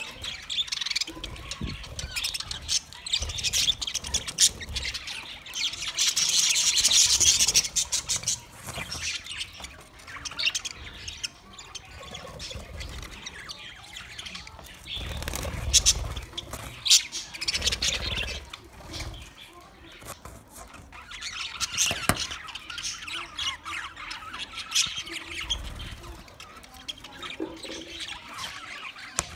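A flock of budgerigars chattering and chirping together in an aviary, a continuous dense twittering with sharper squawks, loudest for a couple of seconds about a quarter of the way in. A few low rumbles and sharp clicks are mixed in.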